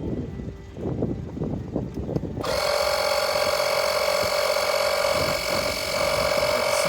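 Portable electric tyre inflator, a small air compressor, starts about two and a half seconds in and runs steadily with a high buzzing hum, pumping the freshly plugged tyre up towards 36 psi. Before it starts there is low rumbling handling noise.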